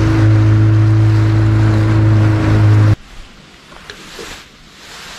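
A boat's motor running steadily at speed, with wind and water noise from the hull, that cuts off abruptly about three seconds in. The rest is quiet: faint wind and lake ambience.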